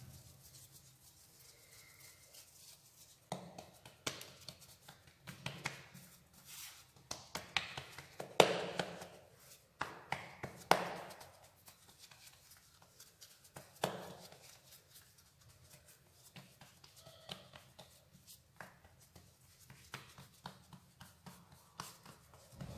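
Hands working soft dough on a floured marble countertop: irregular pats, slaps and rubbing as a ball of dough is rounded and then pressed flat with the palms. The slaps are heaviest in the middle of the stretch.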